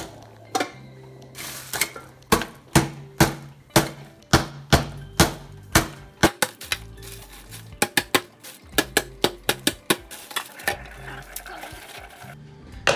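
Metal spoon whacking a zip-top bag of ice cubes in a stainless-steel sink to crush the ice: a run of sharp hits about two a second, then a quicker flurry about two-thirds through. Background music plays underneath.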